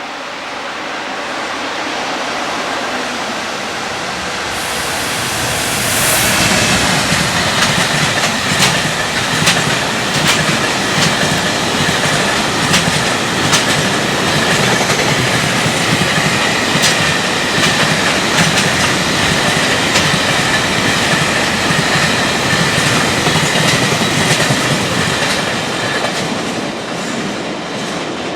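Freight train passing at high speed, its wheels clattering over rail joints in a rapid clickety-clack. The sound builds as the train approaches, jumps sharply as the locomotive arrives about six seconds in, and runs on as the wagons pass, easing near the end.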